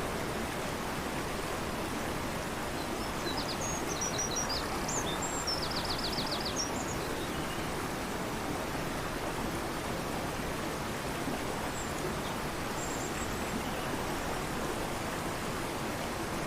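Fast-flowing river, a steady, even rush of water throughout. Over it, a bird sings a short burst of high chirps ending in a quick trill of about eight notes a few seconds in, and gives a faint call near the end.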